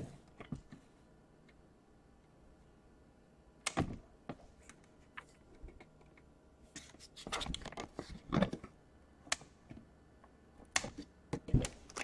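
Scattered clicks and snaps of plastic as a pry tool is worked along the seam of a Dell Inspiron 15 5000 laptop's case, unlatching the clips that hold its two plastic shells together. A few single clicks come first, then a quicker run of clicks past the middle.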